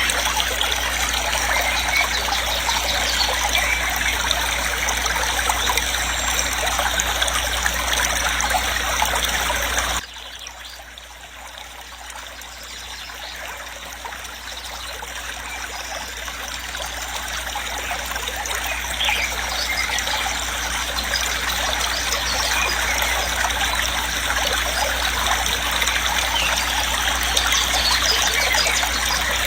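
Waterfall, a steady rush of falling water. About ten seconds in it suddenly turns much quieter, then slowly builds back to full over the next ten seconds or so.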